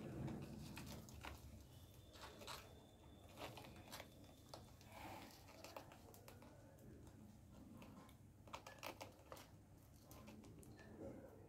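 Near silence with faint scattered rustling and soft clicks.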